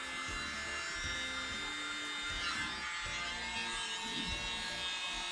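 Small handheld electric air blower running with a steady motor buzz, blowing over wet acrylic paint to clear bits of cell activator.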